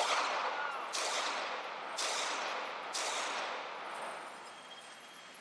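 Four shots from a .380 Glock 42 pistol, fired about a second apart, each followed by a long ringing decay that dies away after the last one.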